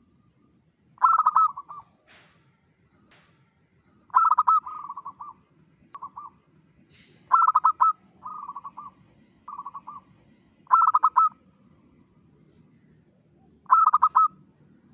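Local-type zebra dove (perkutut) cooing: five rhythmic phrases about three seconds apart, each a quick run of rolling coos, some followed by a few softer trailing notes.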